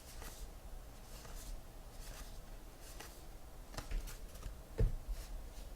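Baseball trading cards being handled and flipped through: faint, short card slides and flicks every second or so, with a soft knock about five seconds in.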